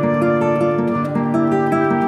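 Background instrumental music: a gentle plucked-string melody, its notes following one another every fraction of a second at a steady level.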